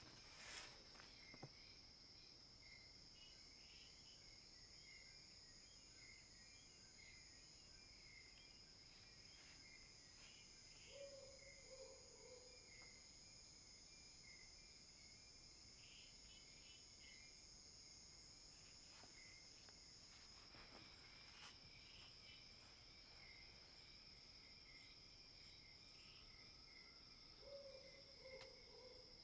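Faint night insect chorus: a steady high trill with a quicker pulsing chirp beneath it. A brief lower sound comes twice, about eleven seconds in and near the end.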